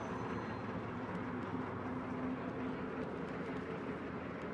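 Steady outdoor background noise with a low, even hum and no distinct events.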